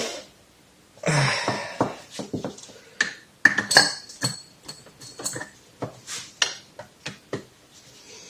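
Metal tool clinking and scraping against a Showa fork leg as the old fork seal is pried out, in an irregular run of short, sharp clinks and scrapes, the loudest about a second in.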